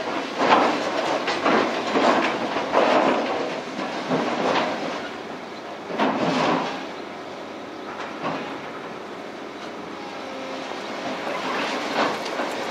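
Genesis hydraulic shear on an excavator digging into a pile of scrap structural steel: repeated irregular clanks and crashes of metal on metal as the jaws grab and shift the pieces, easing off for a few seconds in the second half and picking up again near the end.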